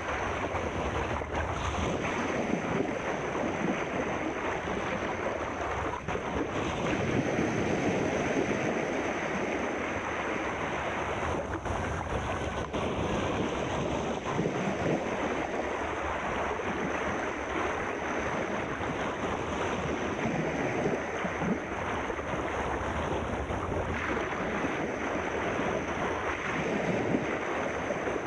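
Sea surf washing in a continuous, steady rush.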